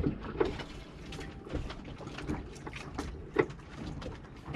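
Irregular clicks, knocks and clatter of things being handled and moved about, with one louder knock about three and a half seconds in.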